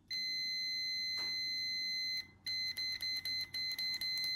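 Multimeter continuity beeper sounding as a brake light switch's contacts close: one steady high beep for about two seconds, then a brief break and a run of quick, irregular beeps as the contact makes and breaks while the plunger is worked.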